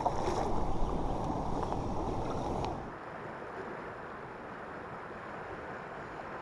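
Water churning and lapping as a hooked carp thrashes at the surface beside the landing net, with wind on the microphone. After about three seconds it drops abruptly to a quieter, steady wind and river noise.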